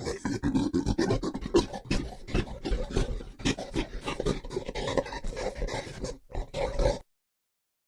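An animal making rapid, repeated breathy calls, about five or six a second, that stop abruptly near the end.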